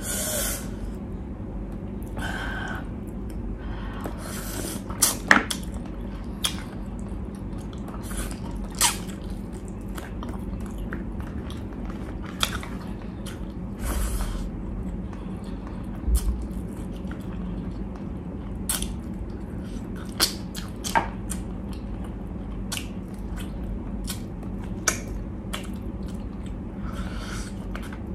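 A person chewing and eating saucy pork ribs and rice by hand, with many scattered short, sharp mouth and eating clicks over a low steady hum.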